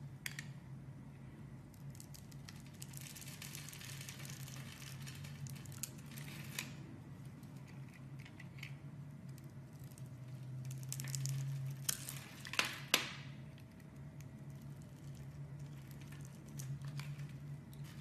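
Utility-knife blade cutting into a bar of soap scored into a grid, the small cubes crackling and crumbling off in two spells, the second ending in a couple of sharp clicks. A low steady hum runs underneath.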